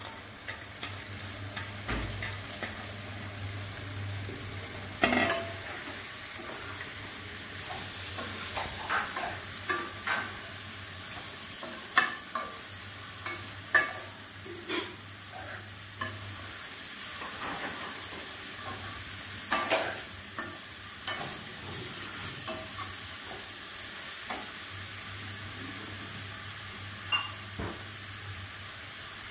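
Chopped spring onions sizzling in a stainless steel kadai while a metal spatula stirs them, the spatula clinking and scraping against the pan every few seconds over a steady frying hiss.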